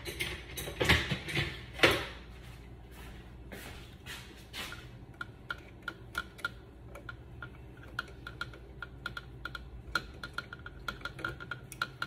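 Pliers working on the bare copper ground wires in a wall switch box, twisting them apart: a few sharp metallic clicks, then a quick run of small light ticks.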